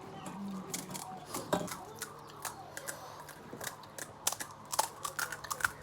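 Crisp panipuri shells crunching and crackling close to the microphone as they are broken and eaten: many quick, irregular snaps, coming thicker in the second half.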